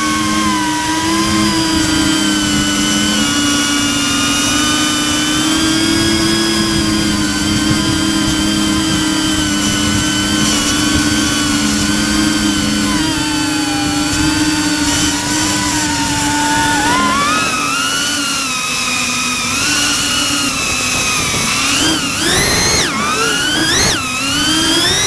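SpeedyBee 35 FPV cinewhoop drone in flight: the whine of its brushless motors and ducted propellers, several tones drifting in pitch as the throttle changes. Near the end the whine swoops sharply up and down several times under quick bursts of throttle.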